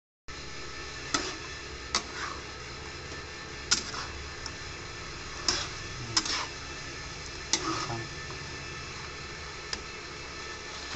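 Metal spatula clinking and scraping against a steel kadai as chunks of pork curry are stirred: about six sharp clinks, some trailing into a short scrape, over a steady low hiss.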